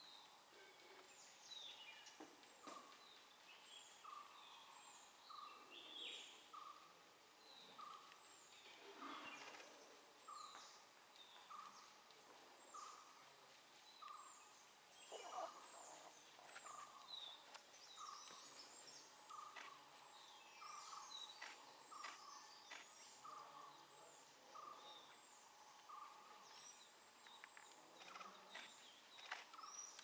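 Faint forest bird chorus: one bird repeats a short note about every three-quarters of a second while others give brief, high, down-slurred chirps. A louder short sound stands out about halfway through.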